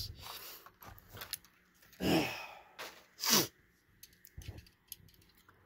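A man breathing out twice in audible sighs, about two seconds and three seconds in, with faint clicks from a small diecast model car being handled.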